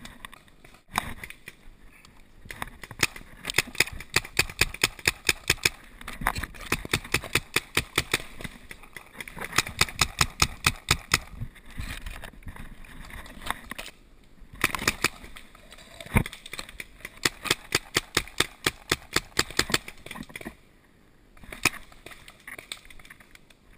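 Paintball markers firing in rapid runs of shots, several a second, in repeated volleys with short pauses between.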